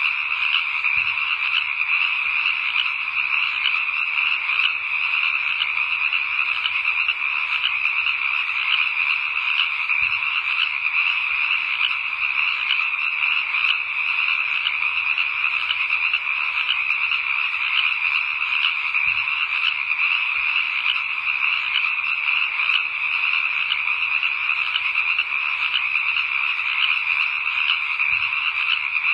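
A dense chorus of frogs calling, steady and unbroken.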